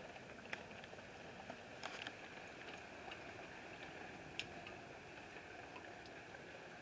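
Light rain pattering faintly and steadily, with a few sharper single drop ticks, the clearest about half a second, two seconds and four and a half seconds in.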